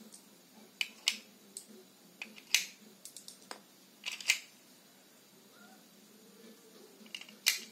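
Metal airgun revolver shells clicking and tapping as they are pushed one by one into a speed loader: a string of short, sharp clicks at uneven intervals, with a pause before one last click near the end.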